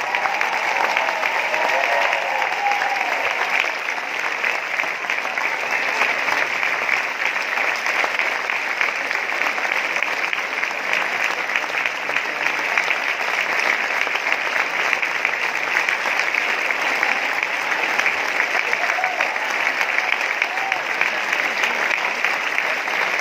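A large theatre audience of about 2,500 applauding steadily in a long ovation, the dense clapping holding an even level. A few voices call out faintly over the clapping near the start and again near the end.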